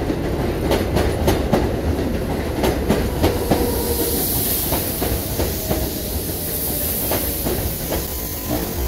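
New York City Subway R188 train running past on an elevated steel track: a steady rumble with the wheels clacking over rail joints. A high hiss comes in twice in the middle.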